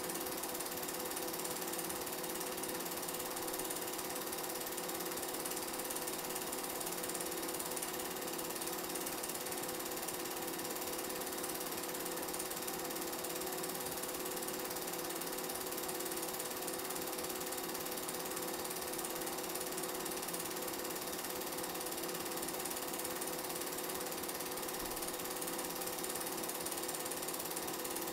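Film projector running, a steady mechanical whir and clatter with an even hiss.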